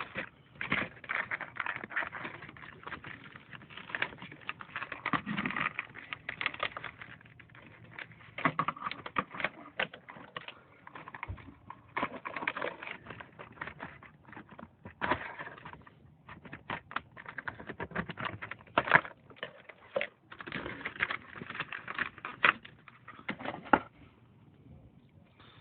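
Toy packaging being handled and opened: bursts of rapid clicking and crinkling of cardboard and plastic, which stop near the end.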